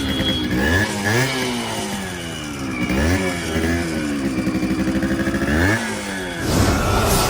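A modified Yamaha RX100's two-stroke single-cylinder engine being revved. The pitch climbs and drops twice, and the second time it is held up for a couple of seconds. A rushing whoosh rises near the end.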